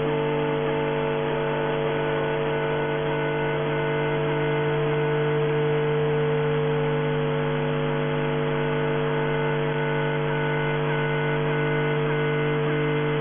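Shortwave receiver audio in upper sideband: a steady hum of several carrier tones over hiss, some of the tones briefly dropping out at regular intervals, with no readable voice.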